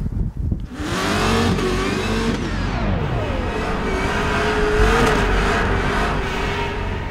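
Drift cars sliding through a hairpin in tandem, starting about a second in: engines revving up and down at high rpm under tyre squeal.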